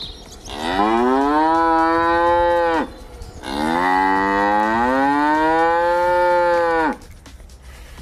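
A cow mooing twice in long calls, the second longer than the first; each rises in pitch at the start and drops off at the end.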